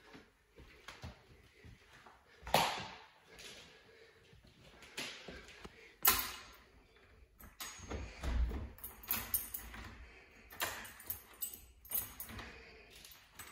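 Scattered knocks and clicks from someone moving through a room while holding a phone, with a sharp knock about two and a half seconds in, a louder one about six seconds in, a low thump about eight seconds in, and a run of clicks near the end.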